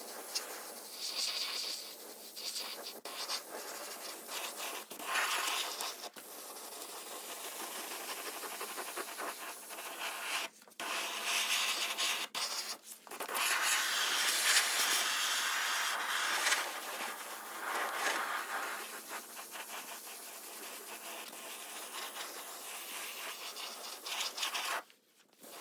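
Abrasive sanding and scraping on rusty car body metal, a rough noisy rasp that swells and eases, broken off by several abrupt cuts.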